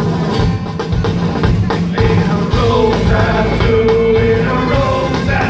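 Live rock band playing loud on an outdoor stage, with drums and electric guitars; singing comes in about two and a half seconds in.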